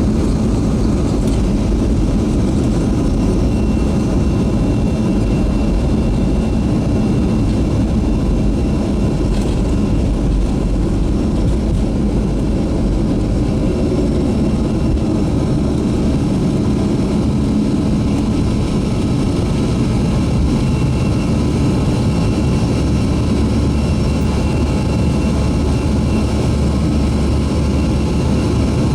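Steady jet airliner noise from a Boeing 737-300 with CFM56 turbofan engines, heard from inside the aircraft. It is a deep, even rumble with a faint steady whine, and it neither rises nor falls.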